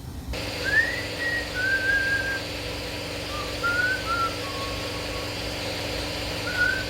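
A person whistling a tune in short, wandering phrases over a steady mechanical hum and hiss.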